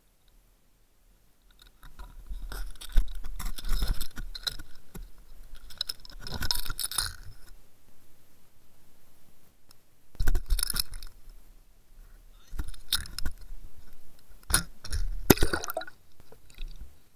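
A camera in a waterproof housing knocking, clinking and scraping against a boat's hull, with splashing as it goes into the sea on the fishing line. The knocks come in three irregular bouts.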